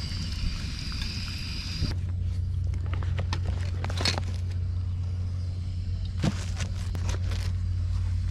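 Pakoras sizzling in hot oil over a steady low hum. The sizzling cuts off about two seconds in, and the hum carries on with a few scattered clicks and pops.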